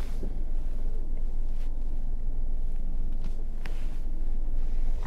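Steady low rumble of a vehicle driving along a road, with wind noise on the microphone and a few faint ticks.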